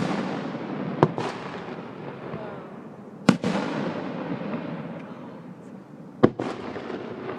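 Aerial firework shells bursting: sharp booms about a second, three seconds and six seconds in, each followed by a crackling tail that fades away.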